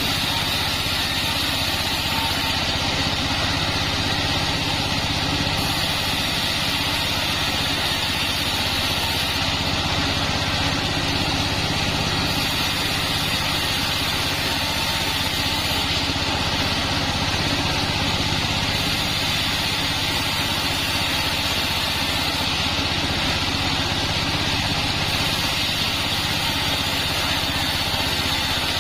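Band sawmill machinery running steadily: a constant engine hum with a steady higher hiss, holding the same pace throughout.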